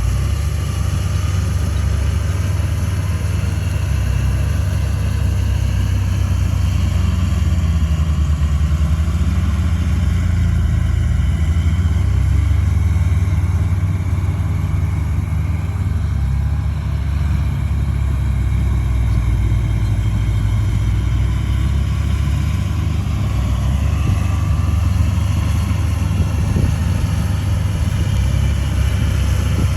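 Heavy diesel engine of earthmoving machinery running steadily at a constant speed, a loud low sound without clear revving.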